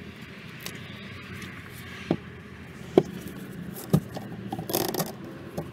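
Handling noises in a car interior: three sharp clicks or knocks about a second apart, then a short rustling scrape near the end.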